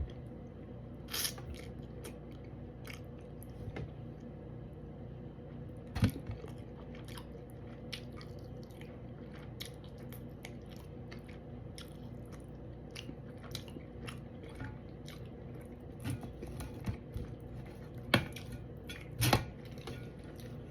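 Close-up chewing and biting of fish, wet mouth clicks and smacks scattered irregularly, with a few louder sharp sounds about six seconds in and again near the end. A steady low hum runs underneath.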